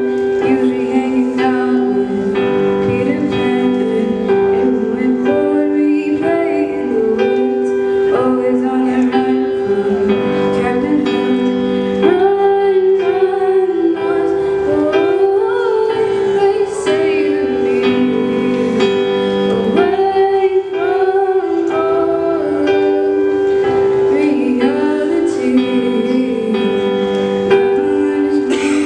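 A boy sings into a handheld microphone over instrumental backing music, both amplified through stage speakers.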